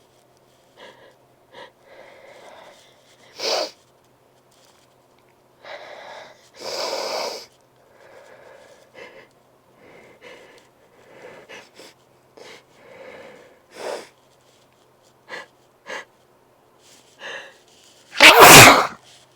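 A person sniffing and catching short breaths through an irritated, over-sensitive nose, then one loud, sharp sneeze near the end.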